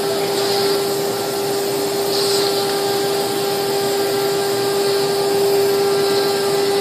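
CNC router's HSD spindle running at speed with a steady whine, its bit cutting through a sheet of board as the gantry moves.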